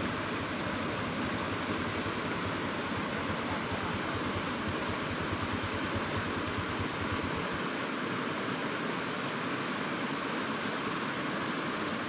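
River water rushing steadily over stones and shallow rapids, an even hiss, with a low fluttering rumble that fades out about seven seconds in.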